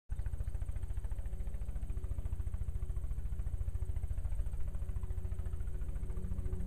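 Helicopter flying low over a cornfield, its main rotor giving a fast, even thudding beat over a steady engine drone. It is making passes along the corn rows, using its rotor downwash to blow pollen onto the plants.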